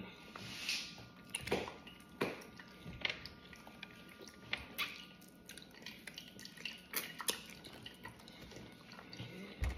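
Close-up eating sounds of a person chewing baked fish picked up by hand: soft chewing, lip smacks and scattered small wet clicks.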